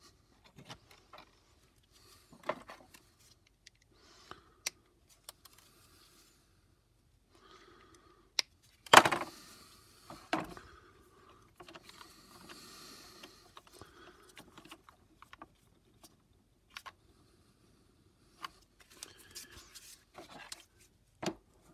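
Gloved hands handling tools on a hard countertop: scattered clicks, knocks and scrapes as a cordless drill is picked up, side cutters are moved and a resistor is fitted into the drill's chuck. A sharp knock about nine seconds in is the loudest.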